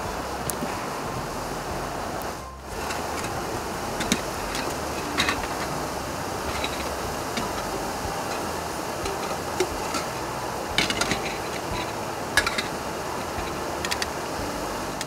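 Steady rush of river water, dipping briefly about two and a half seconds in, with scattered light clicks and taps over it.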